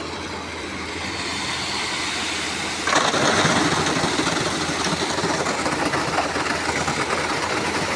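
Heavy construction machinery engine running steadily and slowly getting louder; about three seconds in, a louder rattling, clattering noise starts up on top of it and keeps going.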